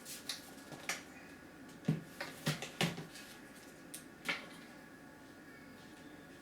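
Light clicks and taps from the parts of an opened-up Lenovo T520 laptop being handled, about seven sharp ones in the first four and a half seconds.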